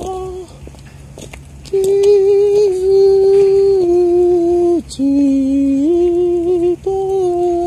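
A person humming a slow tune in long held notes that step up and down in pitch, with a pause of about a second near the start.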